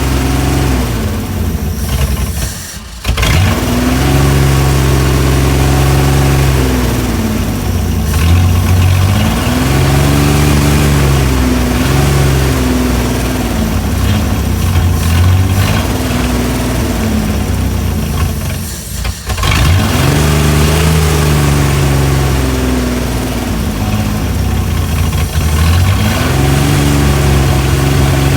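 Chrysler Hemi 265 straight-six engine running, its revs rising and falling again and again while the idle is being set, with two brief breaks in the sound.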